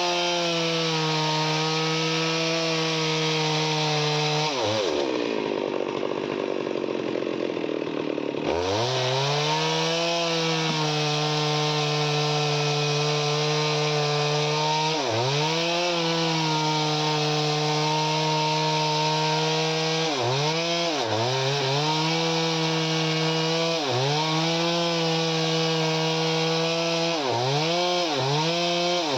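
Chainsaw running at high revs and cutting wood. Its pitch dips sharply and recovers several times as the chain loads in the cut, more often near the end. For a few seconds early on, the note drops low and runs rough.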